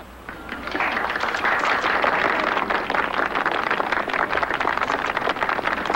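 Crowd applauding, starting a little under a second in and holding steady.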